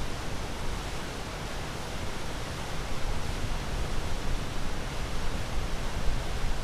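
Sea waves washing in a continuous rush with a low rumble underneath, swelling a little louder about halfway through.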